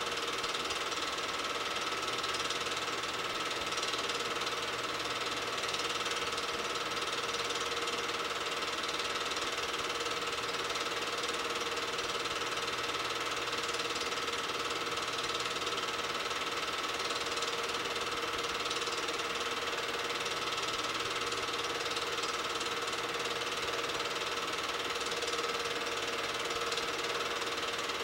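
8mm film projector running: a steady, rapid mechanical clatter over a steady whine, unchanging throughout.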